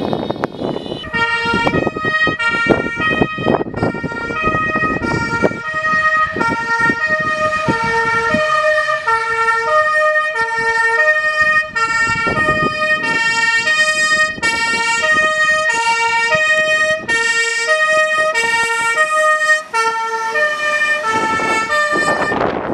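German fire engine's two-tone siren (Martinshorn) sounding, alternating between a low and a high tone about every half second. Engine and road noise from the passing vehicles is loud in the first few seconds and comes back near the end.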